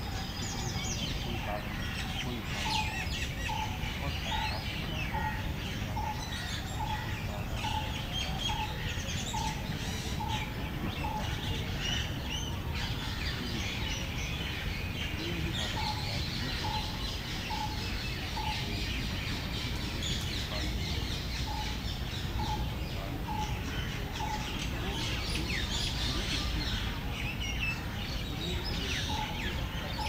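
Many wild songbirds chirping and trilling at once. A low note repeats about twice a second for long stretches, stopping briefly in the middle, over a steady low background rumble.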